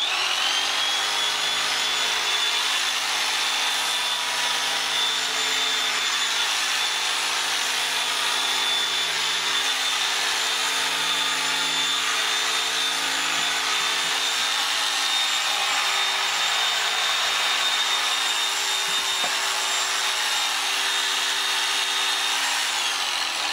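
Electric sheep-shearing clippers with a wide comb, switched on and running at a steady high whine with a rough hiss over it as they cut through the fleece. The motor spins up right at the start and winds down near the end.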